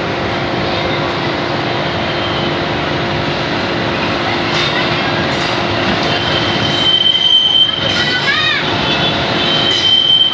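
KRL electric commuter train running into the station with a steady hum and rumble. A high, steady wheel squeal sets in about six seconds in and wavers briefly near the end.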